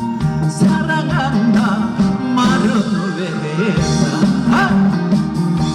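Upbeat trot band music with a steady beat and a melody line: the instrumental passage between sung lines of the song.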